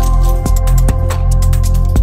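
Electronic background music with a steady beat of sharp percussion hits about twice a second over deep sustained bass.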